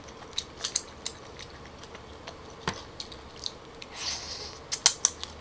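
Close-miked clam shells clicking and tapping as stir-fried clams are picked from a pile. About four seconds in, a short slurp as a clam is sucked from its shell, followed by a few sharp eating clicks.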